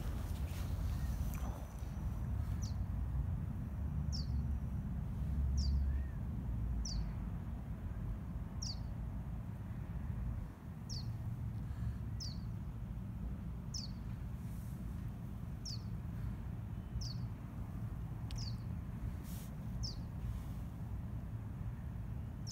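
A small bird repeating one short, high chirp that slides downward, about every one and a half seconds, over a steady low rumble.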